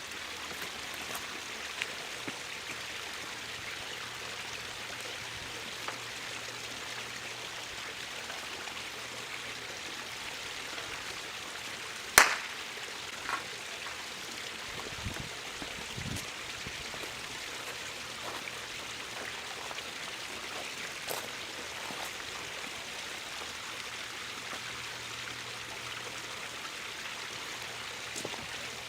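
Steady hiss with scattered faint crackles and one sharp, loud pop about twelve seconds in, then two low thuds: the burnt-out power inverter's components are still popping after being overloaded.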